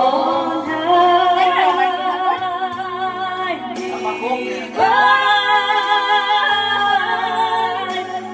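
A woman sings into a handheld microphone over backing music, holding two long notes with vibrato; the second begins about halfway through.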